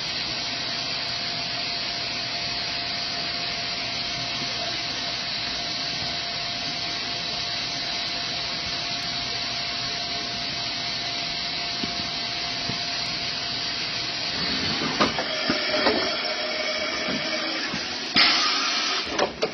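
1998 Mazak VTC-16A vertical machining centre running: a steady hiss with a thin steady hum under it. The hum fades out about three quarters of the way through, irregular knocks follow, and near the end there is a short, very loud burst of hiss.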